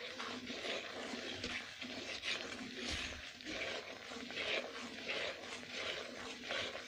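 A spatula stirring and scraping a thick, wet semolina halwa mixture around a kadhai, in repeated rasping strokes about one a second, as sugar syrup is worked into the roasted semolina.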